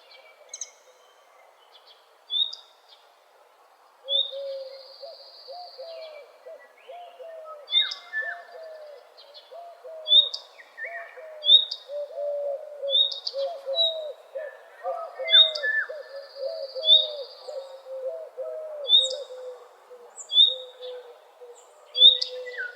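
Several wild birds singing together in a morning chorus. Short, high chirps repeat roughly every second and a half, over a lower-pitched call made of many quick notes that sets in about four seconds in.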